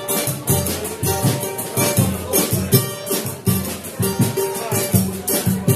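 Live samba: pandeiro, surdo and tamborim keep a steady, even beat under acoustic guitar.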